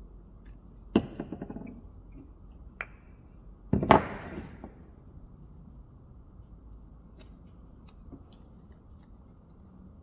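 Knocks and a short clatter of wooden workpieces being handled on a bench: a clatter about a second in, a single click, then a louder knock with a brief rattle about four seconds in, followed by a few light ticks.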